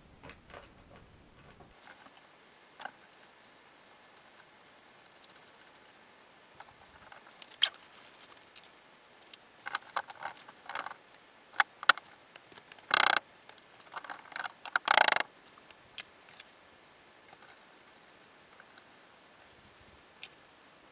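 Hands working small hardware under the sled of an ice-fishing shelter: scattered clicks, scrapes and rustles as nuts and washers are threaded by hand onto stove bolts through the skis. Past the middle come a quick run of louder clicks and two longer rasping noises.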